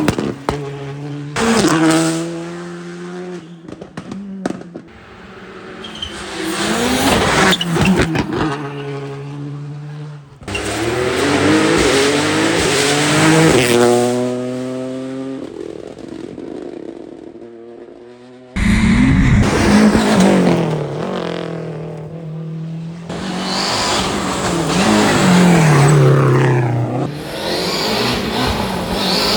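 Rally cars at full speed on a special stage, passing one after another, engines revving high and dropping through quick gear changes. Several separate passes are cut together, with sudden changes about ten and nineteen seconds in.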